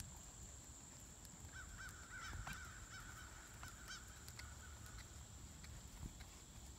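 A bird calling a quick run of short, arched chirps, starting about a second and a half in and lasting some three seconds, over a faint low rumble and a thin steady high tone.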